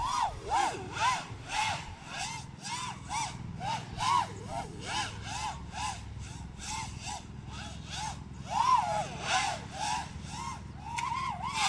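FPV quadcopter's brushless motors and propellers whining, the pitch swinging up and down about twice a second as the throttle is worked hard during a PID tuning test flight.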